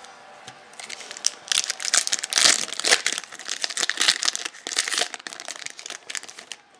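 Crinkling and tearing of a trading-card pack wrapper being handled and opened, a dense crackle that starts about a second in and stops just before the end.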